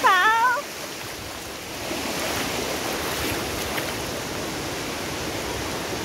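A child's brief high-pitched squeal right at the start, then a steady wash of shallow surf and water splashing around feet.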